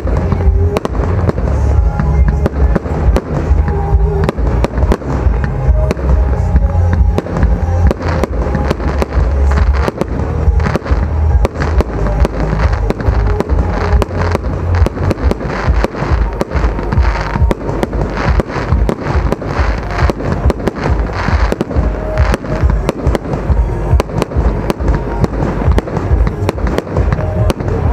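Aerial fireworks display: a dense, unbroken run of rapid bangs and crackles from bursting shells, over a heavy low rumble.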